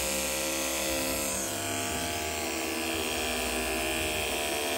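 Conair electric hair clippers running with a steady buzz as they cut through long, thick hair.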